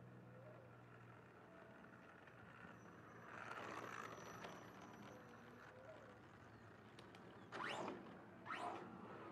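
Traxxas funny car RC model's electric motor and tyres, faint, swelling as it passes close about three to four seconds in, then two short, louder whooshes near the end as it drives away.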